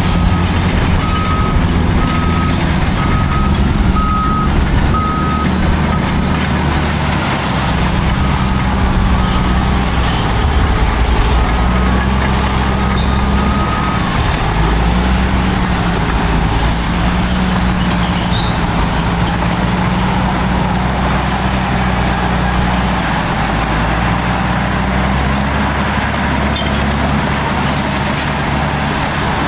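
Caterpillar D7 and D8 bulldozers' diesel engines working steadily under load while chain-clearing scrub, with a reversing alarm beeping repeatedly through roughly the first half.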